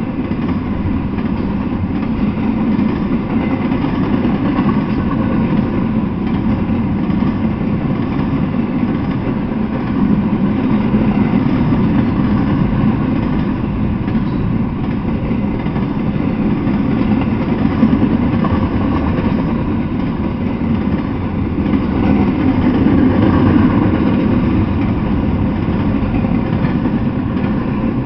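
Intermodal freight train of double-stack container well cars rolling past: the steady noise of steel wheels running on the rails, with no horn or sudden knocks.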